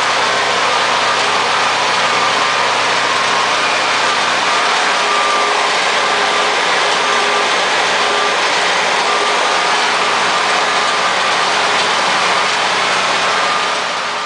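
SPEC Technologies CDS dual hydraulic spray foam machine running steadily: a dense, even mechanical noise with faint steady hums mixed in. It fades out near the end.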